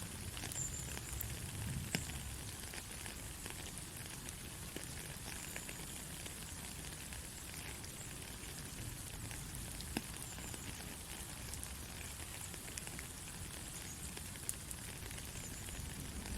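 Soft rain falling steadily, an even hiss with a few louder single drop ticks scattered through it.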